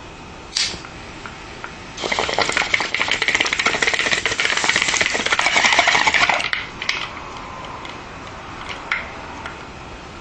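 Bong hit: a single sharp click about half a second in, then the bong's water bubbling and gurgling for about four and a half seconds as smoke is drawn through it, stopping fairly suddenly, followed by a few faint clicks.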